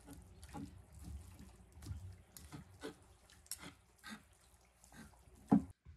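Chef's knife and fork pulling apart fall-apart-tender braised pork on a wooden cutting board: irregular soft taps of the blade against the board with wet squelches of the meat, about two a second. One sharper, louder knock comes near the end.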